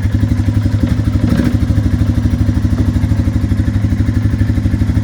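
Suzuki Quad Runner 500 ATV's single-cylinder four-stroke engine idling steadily just after starting, its hard-starting problem cured by turning the fuel petcock to prime.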